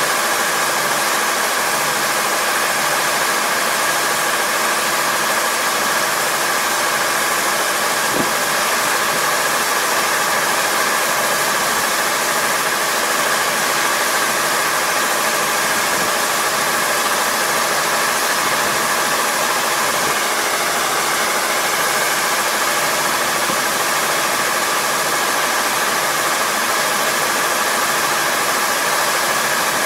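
Kubota ER470 four-row combine harvester running steadily under load, its diesel engine and machinery making a dense, even noise with a constant hum that holds the same pitch throughout.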